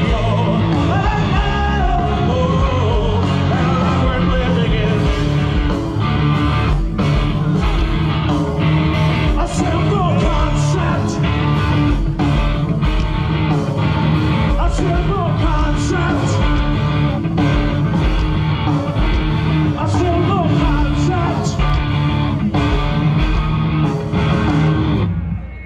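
Live rock band playing loud through a festival sound system: singing over electric guitar and drums. The music cuts off suddenly near the end.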